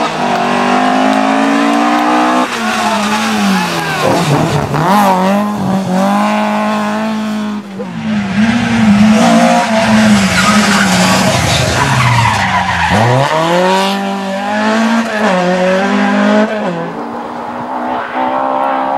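Ford Escort Mk II rally car's engine revving hard, its pitch repeatedly climbing through the gears and dropping sharply on lifts off the throttle and downshifts, with tyre noise. The sound changes abruptly a few times as separate passes of the car are cut together.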